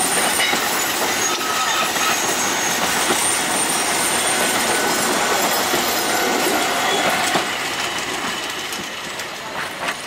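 Alishan Forest Railway narrow-gauge passenger cars rolling past close by, wheels clattering over the track joints with some squeal on the curve. The sound fades from about seven seconds in as the last car moves away.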